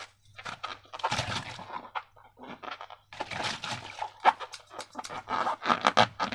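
Slime being squished and worked by hand: irregular bursts of wet crackling and sharp clicks, with short pauses between squeezes.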